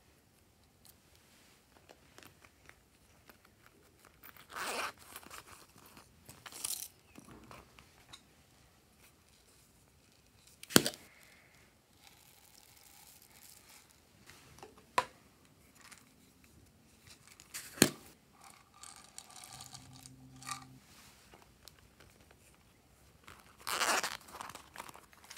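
Close-up handling of slime-making materials: scattered soft rustles and a few sharp taps, then a louder tearing rustle near the end.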